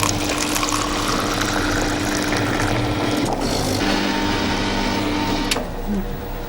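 Laundromat washing machines running: a steady mechanical hum under a dense rushing noise.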